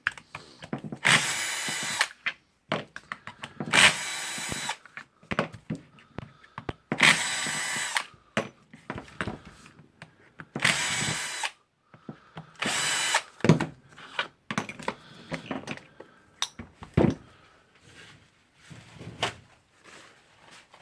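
A power driver spinning out the four screws that hold the impact wrench's motor housing to its hammer housing, in five short runs of about a second each, with small clicks and clatter of screws and parts between them.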